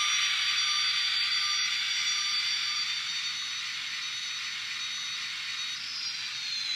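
Jet-engine sound from the onboard sound decoder of a Kato N scale RDC model (the jet-powered New York Central test car), played through its tiny speaker. It is a steady high whine over a hiss that slowly gets quieter, and near the end the whine splits into one tone rising and one tone falling.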